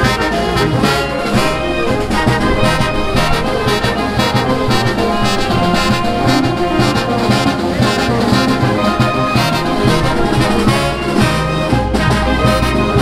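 Live brass band playing festive music, brass instruments over steady drum hits.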